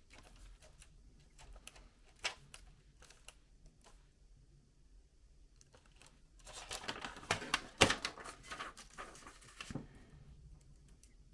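Light clicks and scratching of hands and tools working over a laptop's plastic case while hunting for screws hidden under stickers, with a denser run of scraping and clicking about six to ten seconds in and one sharp click near eight seconds.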